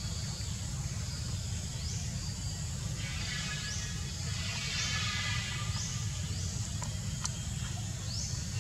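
Forest ambience: insects, likely cicadas, buzzing in high calls that sweep upward and repeat every second or so, over a steady low rumble, with a few small clicks about seven seconds in.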